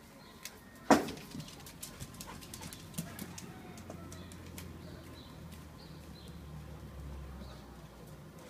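A Weimaraner moving about on tile and concrete, its claws clicking and scrabbling many times, with one loud knock about a second in.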